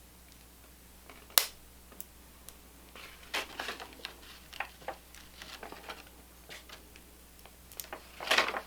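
GRITR R3 Dolomite multi-tool being handled while its locked knife blade is worked at: a sharp click about a second and a half in, then a run of lighter clicks and scrapes, and a brief rustle near the end.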